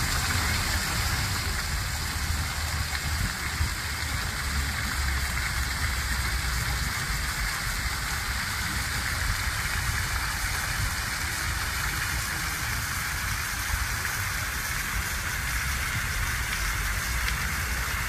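Water from a tiered ornamental fountain falling and splashing steadily into its basin, over a low steady rumble.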